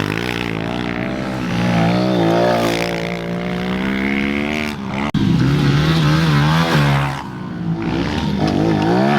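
Small pit-bike engines being ridden hard, the pitch climbing and dropping as the throttle is worked and gears change. The sound breaks off abruptly about five seconds in and picks up again with another run of revving.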